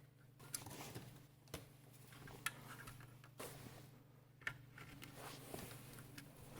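Faint scattered clicks and taps, roughly one a second, over a low steady hum.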